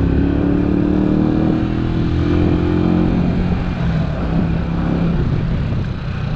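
Italika DT 125 motorcycle's single-cylinder four-stroke engine running while riding, its pitch rising slowly for about three seconds as it accelerates, then easing off.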